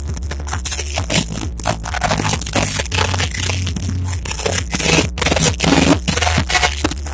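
Loud dance music played over stage speakers, so overdriven that it comes through as a harsh, crackling wash with a steady bass line underneath.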